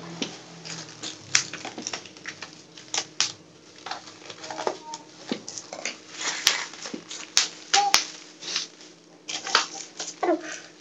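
Bubble wrap and thin plastic film being pulled, torn and cut off a packed item, crinkling with many irregular sharp crackles.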